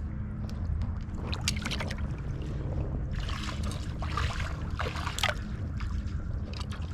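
Boots wading through shallow creek water, sloshing and splashing in irregular bursts over a steady low rumble.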